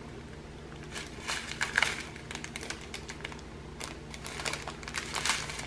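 A strip of small plastic bags of diamond-painting drills being handled: irregular light crinkles and clicks of the plastic and the tiny resin drills shifting inside.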